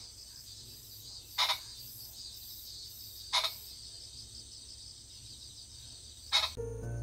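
Steady chorus of crickets and other insects, broken three times by a short, sharp, loud sound about two seconds apart. Music starts just before the end.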